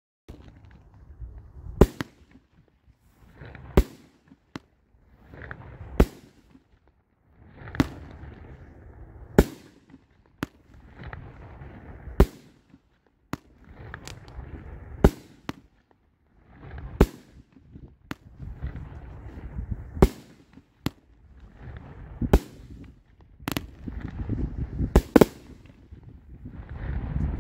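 A 200-gram, 12-shot fireworks cake firing its aerial shells one after another: a sharp bang about every two seconds, each after a rising noisy swell. Near the end the bangs come closer together for the finale.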